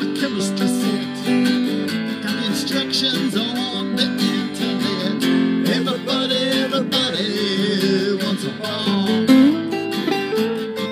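Acoustic guitar strumming chords while a hollow-body electric guitar, played through a small amp, picks lead lines over it.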